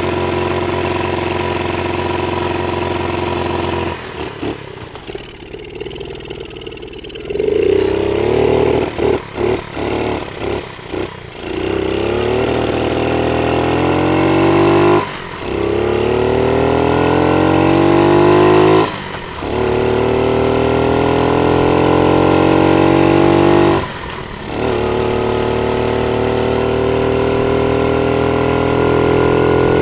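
50cc dirt bike engine running: it holds a steady idle at first, then gives a string of short throttle blips, then pulls away. As the bike gains speed the pitch climbs four times, each climb cut by a brief drop.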